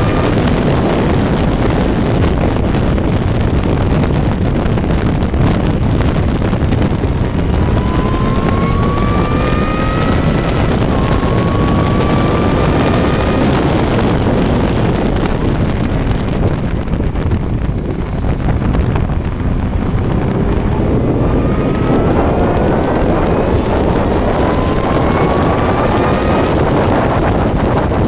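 Onboard sound of a vehicle lapping a race circuit at speed: heavy wind noise on the microphone over an engine revving up through the gears, its rising whine cut off at each shift several times. The engine note eases off for a few seconds about two-thirds of the way through, then climbs again.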